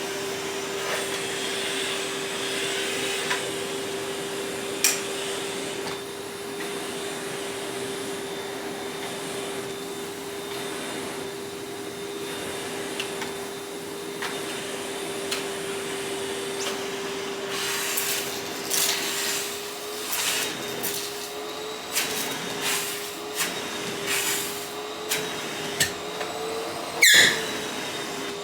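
Vacuum cleaner running with a steady motor whine. In the last third, rapid clicks and crackles of debris being sucked up come in, and the motor pitch wavers as the nozzle is worked. A loud sharp rattle with a brief rising squeal comes near the end.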